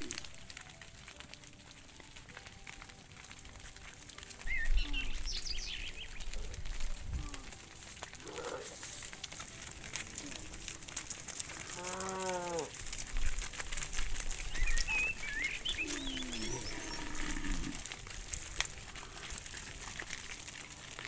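Cattle lowing now and then: a short call that rises and falls about halfway through, a lower falling call a little later, and another starting right at the end. High bird chirps come in twice, over a low rumble and light clicking.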